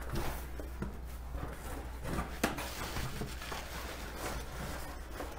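Cardboard shipping box being opened by hand: flaps folding back and paper packing rustling, with a sharp knock about two and a half seconds in.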